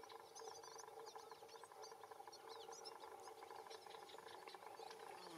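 Wild Atlantic canaries singing faintly: a long, fast twittering run of short chirps over a faint steady hum.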